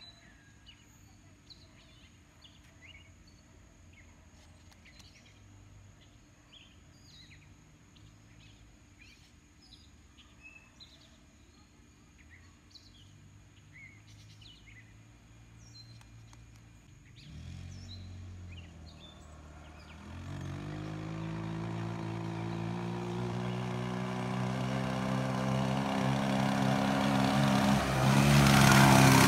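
Birds chirping against quiet outdoor background, then an off-road go-kart buggy's engine comes in about two-thirds of the way through. The engine grows steadily louder and peaks near the end as the buggy drives up and passes close.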